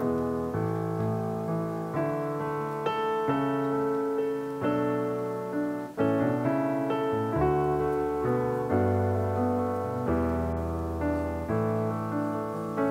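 Background piano music: a steady run of struck chords and notes, changing about once a second.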